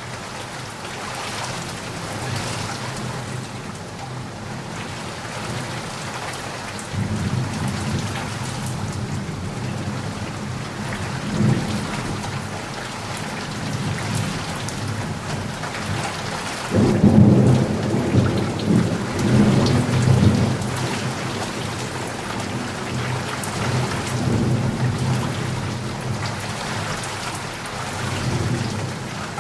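Steady rain with thunder. A low rumble of thunder comes in about a quarter of the way through, and a louder roll of thunder rises just past the middle and lasts a few seconds before fading back under the rain.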